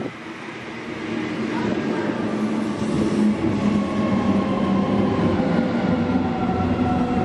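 Electric passenger train approaching and growing louder, its motor whine made of several tones that slowly fall in pitch.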